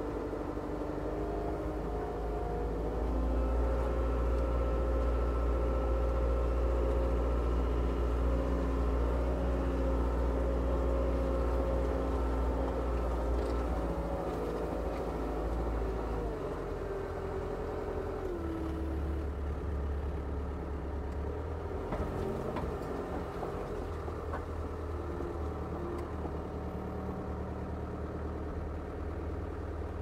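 Engine of a portable sawmill running steadily, its pitch and level stepping up about three seconds in and shifting down again around the middle as the load changes.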